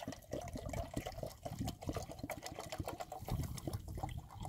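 Water pouring steadily from a plastic water bottle into a metal cook pot, filling it for boiling on a backpacking stove.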